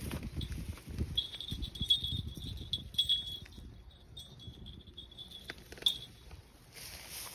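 Rustling with scattered light clicks and clinks, and a steady high-pitched insect buzz from about a second in until near the end.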